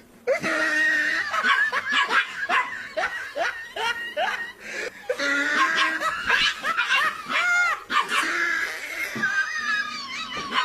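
A person laughing hard in repeated bursts of laughter.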